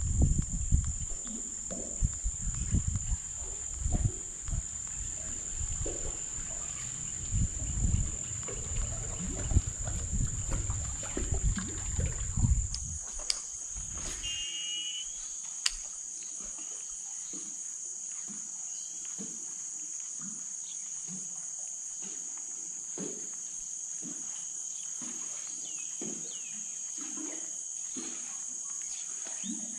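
A steady, high-pitched chorus of insects buzzing without a break. For the first half there is low rumbling buffeting under it, which cuts off abruptly a little before the middle.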